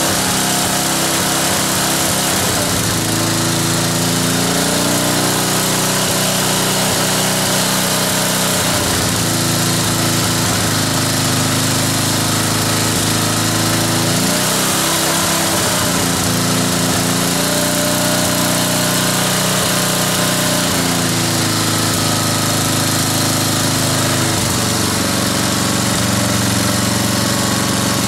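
Tecumseh engine of a Wolf-Garten Cart Tec ride-on mower running while the mower stands still, its speed shifting up and down several times. The engine's centrifugal governor no longer works, so the engine tends to run at full throttle.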